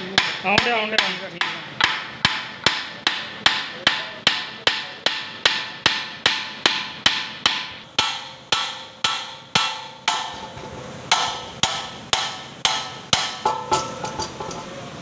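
Hammer blows on the hub of an ammonia compressor's flywheel, about two strikes a second, each hit clanking with a short metallic ring, as the wheel is driven off its shaft.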